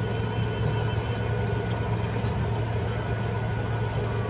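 Heavy truck's diesel engine running steadily at low revs, heard from inside the cab as an even low drone.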